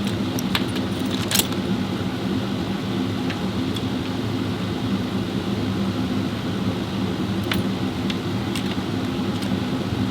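A steady low mechanical hum, with a few light clicks in the first second or so and fainter ones later.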